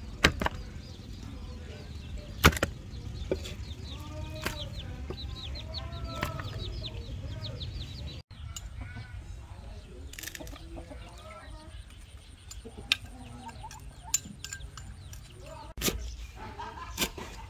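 Chickens clucking in the background, with a few sharp knocks scattered through. Near the end a steel cleaver chops lemongrass stalks on a wooden chopping board, one knock per stroke.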